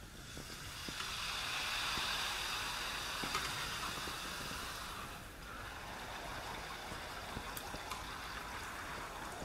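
Besan papdi deep-frying in hot oil: a steady sizzling hiss, loudest in the first few seconds and a little softer after about five seconds, with a few light clicks.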